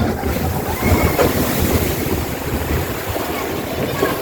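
Steady rushing wind noise on the microphone over a low rumble.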